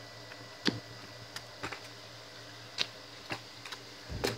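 Sparse light clicks and taps from a skateboard being carried and handled on a brick path, then a louder knock with a brief rumble about four seconds in as the board is lowered toward the bricks.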